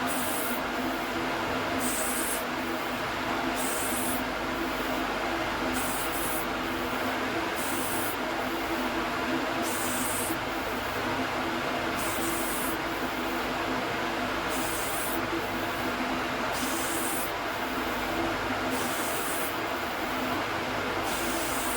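Manual lathe running with a steady hum, with short high-pitched hissing bursts every second or two over it.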